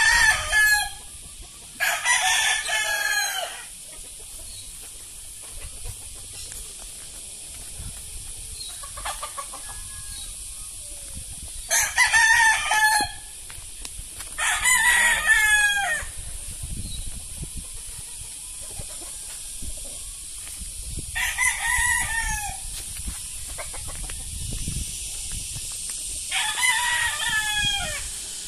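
Several roosters crowing in turn, about seven crows spaced a few seconds apart, some near and loud and one or two fainter and farther off.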